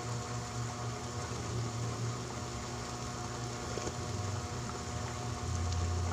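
Pot of sinigang broth bubbling at a rolling boil on a stove burner, a steady bubbling with a constant low hum underneath.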